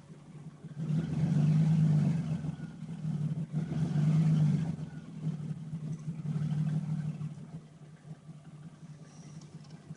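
Dodge Intrepid's V6 engine running, its sound swelling louder and easing off several times. The owner blames the noise on the timing chain; he says the engine rattles and knocks only when warm.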